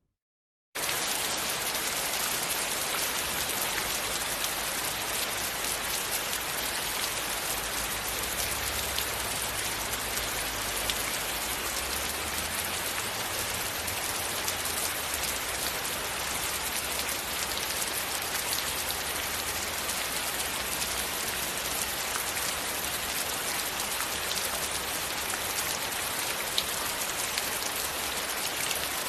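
Steady heavy rain, a dense even hiss of falling drops that starts abruptly just under a second in.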